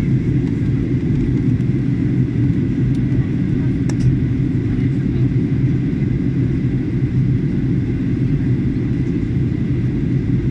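Steady cabin noise of a Boeing 737-800 in descent, heard from a window seat behind the wing: a low rumble of airflow and its CFM56-7B engines, with a faint steady high tone and a single brief click about four seconds in.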